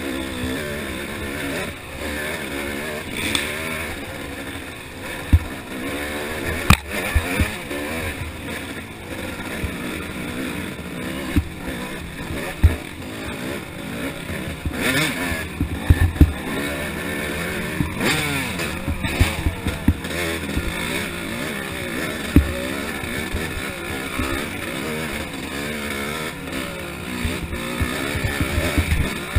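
Yamaha YZ250 two-stroke dirt bike engine revving up and down as it is ridden hard along a trail, with many sharp knocks as the bike hits rocks and ruts.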